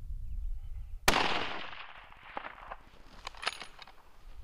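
A single shot from a Bergara custom rifle in .338 Winchester Magnum, about a second in, its sharp report echoing and fading over about a second. A few faint clicks follow.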